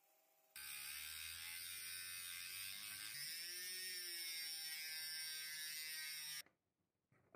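Flex shaft rotary tool's thin cutoff disc grinding into a steel chisel: a steady high-pitched whine that starts about half a second in. Its pitch sags for a moment around three seconds in, then it cuts off suddenly near the end.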